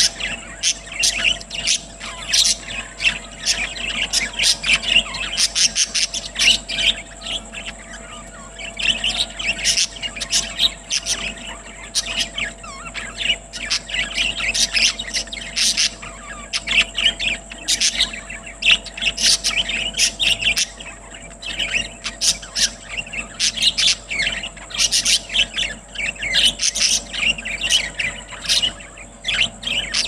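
A flock of budgerigars chirping and chattering, many short rapid calls overlapping continuously.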